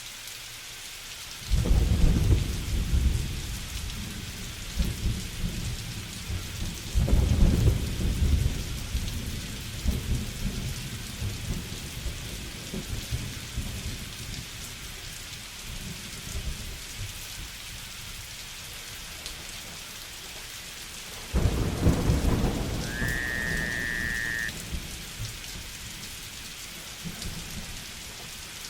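Steady rain with rolling thunder: three rumbles break in suddenly, a couple of seconds in, about a quarter of the way through and about three-quarters through, each fading away slowly. A short high whistled note sounds during the last rumble.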